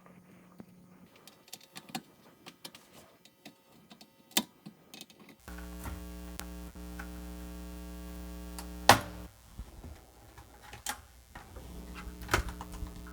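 Small motor hum, likely the vacuum pump of an electric desoldering tool, switching on about five seconds in, stopping after about four seconds and starting again near the end, with a few sharp clicks; faint small clicks and taps before it starts. It is heard while solder is being removed from the shield tabs of a Commodore 64 board.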